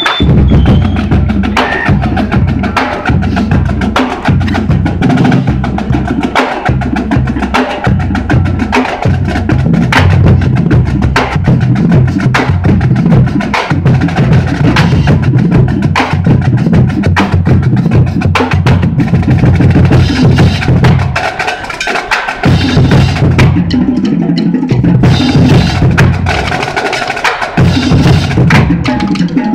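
Marching drum line playing a cadence on snare drums and bass drums: rapid, sharp snare strikes and clicks over steady bass drum beats. The bass drums drop out briefly a little past two-thirds of the way through.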